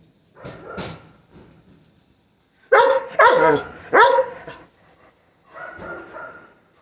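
Young dogs barking during rough play: three loud, sharp barks in quick succession about three seconds in, with softer yelps before and after.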